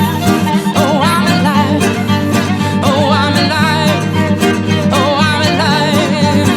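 Background music: an upbeat song with plucked guitar, fiddle and a steady beat, with a wavering melodic line that may be a voice singing.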